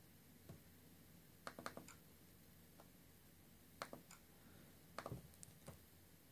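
Near silence broken by faint, short clicks, several in quick succession in small groups.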